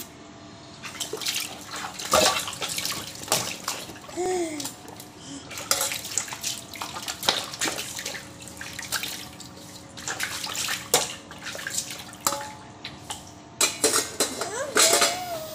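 Water splashing and sloshing as stainless steel dishes are rinsed by hand in a wide basin of water, with frequent clinks and knocks of steel utensils.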